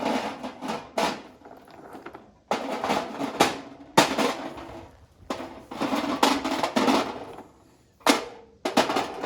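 Lava stones poured into the metal burner pan of a gas fire table, rattling and clattering in several separate pours with short pauses between.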